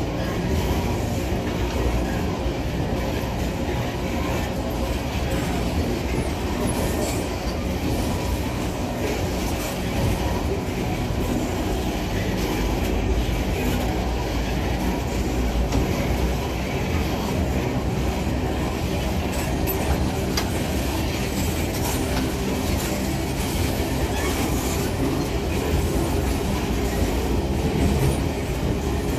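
Long train of empty steel ore wagons rolling past close by, their steel wheels running on the rails with a steady clatter that does not change.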